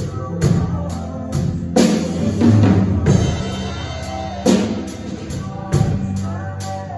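Acoustic drum kit played live in a steady groove along with recorded backing music, with heavier accented hits about two seconds in and again past four seconds.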